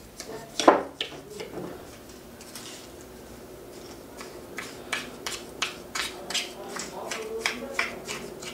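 Plastic spoon stirring a thick, grainy coffee-ground scrub in a bowl, scraping and clicking against the bowl's sides. One loud click comes under a second in; after a quieter stretch, quick clicks follow at about three a second.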